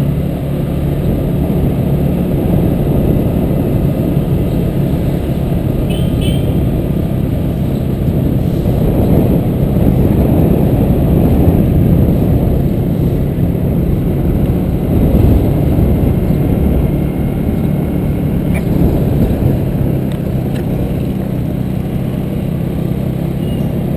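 Wind rumble on the microphone of a camera riding along a street on an open vehicle, over the steady hum of its engine, growing a little louder midway. A few faint, brief high chirps sound about six seconds in.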